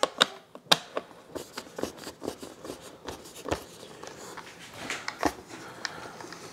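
Small screwdriver driving screws into the plastic tail mount of a foam RC jet, with irregular small clicks, taps and rustles of hands handling the foam airframe.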